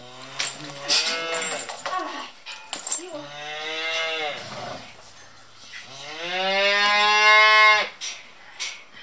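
Cattle mooing: several short calls at first, then a longer one, and near the end a long, loudest moo that rises in pitch. A few sharp knocks come in between.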